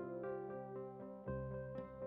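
Soft instrumental background music, gentle plucked or keyboard notes over a sustained low tone that swells about a second and a half in.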